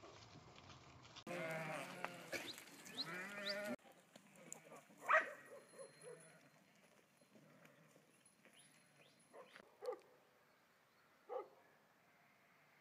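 A flock of sheep bleating: many overlapping bleats close by for about two seconds, then a few single, fainter calls.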